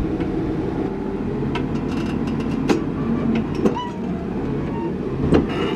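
Heavy diesel engine running steadily, with rattles and a few sharp metallic clanks in the second half.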